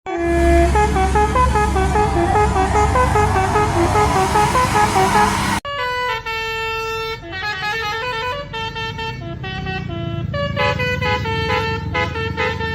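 Basuri 'telolet' musical air horns on tour buses playing quick multi-note tunes. The first horn sounds over a low rumble and hiss and cuts off suddenly about five and a half seconds in; a second horn then plays another stepping tune with longer held notes.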